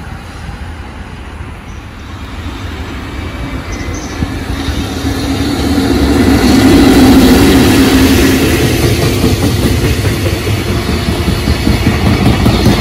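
Freight train passing close by, hauled by a JR Freight EF65 electric locomotive: it grows louder over the first few seconds and is loudest as the locomotive goes by, about seven seconds in. Container flat wagons then roll past with a rhythmic clatter of wheels on the rails.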